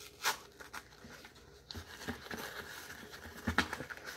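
Crisp crunching and crackling of a hard, baked cornstarch brick, with two sharp loud crunches, one right at the start and one about three and a half seconds in, and smaller crackles between.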